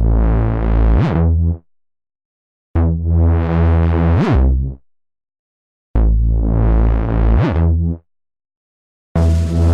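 Electronic music with a heavy synth bass, cut into bursts of about two seconds with dead silence between them. Each burst has a swooping pitch sweep that dips and rises again about a second in.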